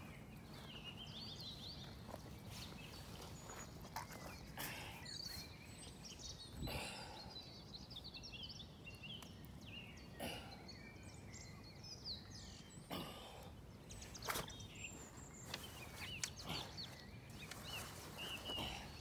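Faint outdoor birdsong: several birds chirping and calling over a steady background hush, with a few brief knocks or rustles.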